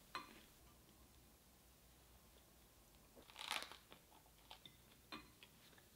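Someone bites into crusty toast, giving one short crunch a little past the middle. Light clicks come as the toast is lifted from a ceramic plate at the start, with a few small ticks near the end.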